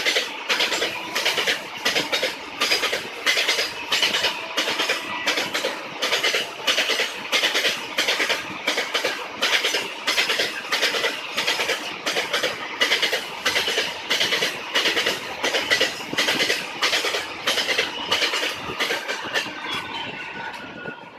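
Container freight train passing: the wagon wheels clatter over the rail joints in a quick, regular rhythm. The clatter drops away near the end as the last wagon goes by.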